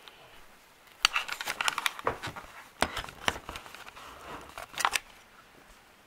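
Rustling and handling noise: a busy run of irregular clicks, scrapes and crinkles that starts about a second in and stops about a second before the end.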